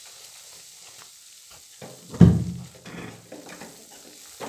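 Gram flour frying in hot ghee in a kadhai, a steady sizzle, while a wooden spatula stirs and scrapes it around the pan. A loud clunk about two seconds in.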